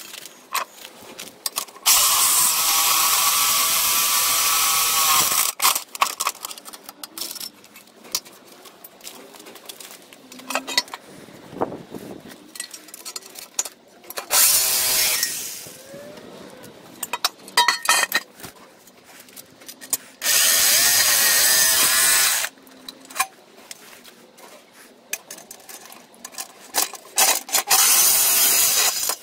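Ozito jigsaw cutting through a cast aluminium engine sump in four separate runs of one to three and a half seconds each, with quieter clicks and knocks of handling between them.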